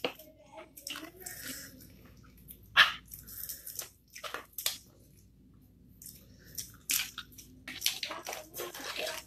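Eating cooked lobster by hand: shell cracked and peeled with the fingers, then wet chewing and lip-smacking, in scattered short clicks and squelches with a quiet spell of about a second midway.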